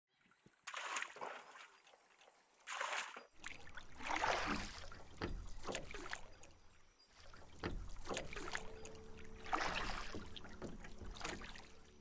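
Water splashing and sloshing against a wooden boat in repeated bursts every second or two.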